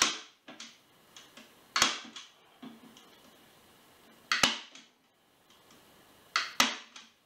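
Hand-held manual staple gun firing staples through nylon webbing into a wooden seat frame: five sharp snaps, the last two in quick succession. It is an older stapler that the owner finds underpowered, leaving staples not fully driven.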